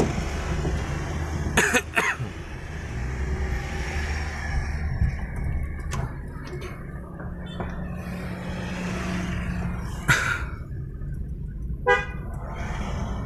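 Steady low road and engine rumble inside a Daihatsu Xenia's cabin as it drives on a smooth road, with a few short knocks. A brief car-horn toot comes near the end.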